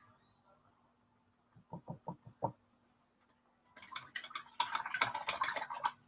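A few soft taps, then a quick, dense run of clicks and clatter from painting tools knocking against containers on a worktable.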